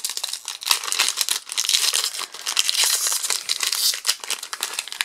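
A Magic: The Gathering collector booster pack's wrapper being torn open and crinkled by hand: a continuous run of crinkling with many small sharp crackles.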